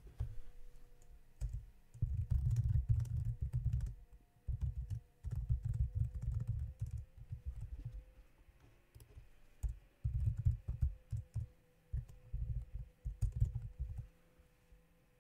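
Typing on a computer keyboard: several bursts of rapid, dull keystrokes with short pauses between them, stopping about a second before the end.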